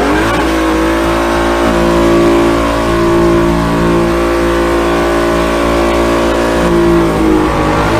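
2016 Mustang GT V8 held at high revs during a burnout, the engine note steady, dipping briefly near the end.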